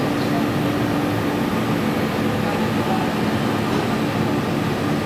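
Scharmann CNC horizontal floor borer running, its column travelling along the bed: a steady mechanical hum with a low steady tone.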